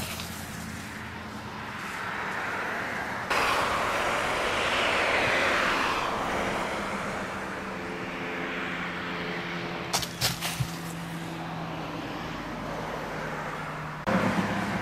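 Road traffic: a car passes, its tyre noise swelling and fading about four to six seconds in, over a steady engine hum. A few sharp clicks come about ten seconds in.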